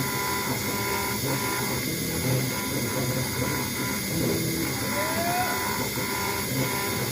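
CNC router engraving a brass plate on its finishing pass: the spindle runs with a steady high whine over the hum of the axis motors. A short rising whine sounds about five seconds in as the cutter moves.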